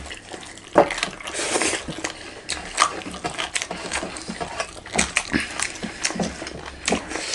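Close-miked eating sounds: chewing, lip smacks and wet mouth clicks, with the soft squish of hands mixing rice on steel plates.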